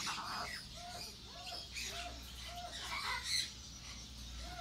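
Baby African grey parrot giving a string of short, low clucking calls, about two a second. A brief rustle is heard about three seconds in.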